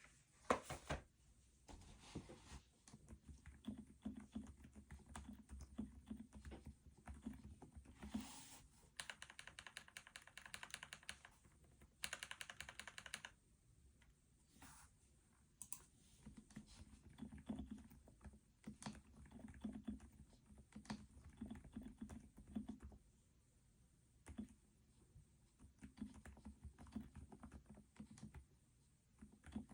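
Typing on an EPOMAKER Roseveil mechanical keyboard with silent switches: soft, muffled keystrokes in bursts, mostly dull low thuds, with a few quicker, brighter runs of presses in the middle.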